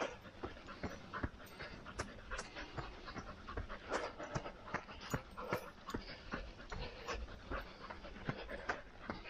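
Footfalls of a slow run on a dirt trail, landing about two or three times a second, with heavy panting breaths.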